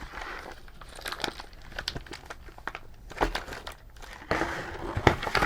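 Plastic bags of kit parts crinkling and rustling as they are handled, with scattered sharp clicks and taps.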